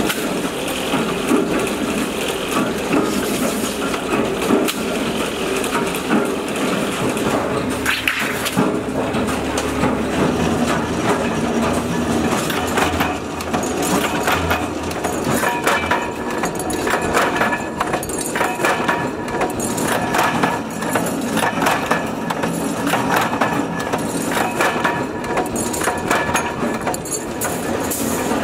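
Sheet-steel workshop machinery: a shear cutting steel sheet with a steady running noise, then a punch press stamping circles out of steel strip with many rapid sharp clacks from about halfway on.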